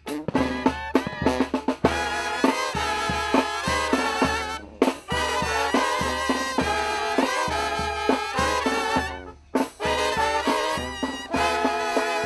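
Mexican banda playing an instrumental passage: clarinets, trumpets and trombones over tuba and drums, with two brief breaks, about a third of the way in and again near three-quarters.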